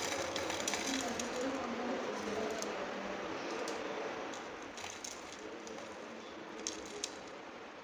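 Fried beef pieces tumbling from a wire strainer basket onto a plate over a steady, slowly fading hiss, with two small clicks near the end.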